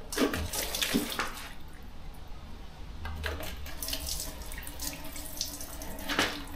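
A cylinder head on a Ford 4.6L two-valve V8 being worked loose and lifted off the block: scraping and rattling of metal parts, with a few sharp knocks, the loudest in the first second and another near the end.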